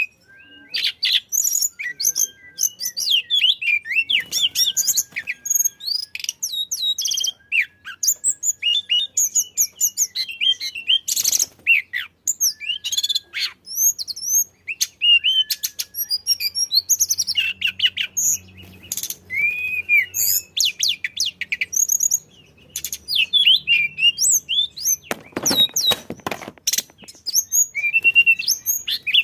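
Tledekan songbird singing in full voice: a continuous, rapid run of varied high chirps, whistled slurs and trills. About 25 seconds in there is a brief burst of noise.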